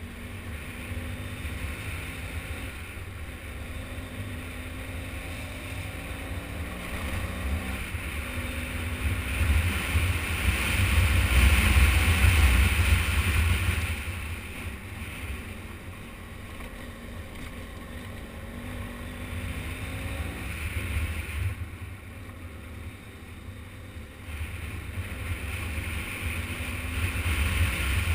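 Motorcycle engine running under way, its pitch rising and falling with the throttle, under heavy wind buffeting on the microphone. The wind and engine grow loudest about ten to fourteen seconds in.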